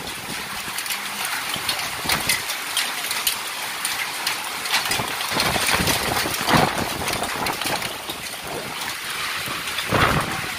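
Hailstorm with heavy rain: a steady dense hiss of rain, full of sharp ticks of hailstones striking the ground and nearby surfaces, with a few louder low surges about two, six and ten seconds in.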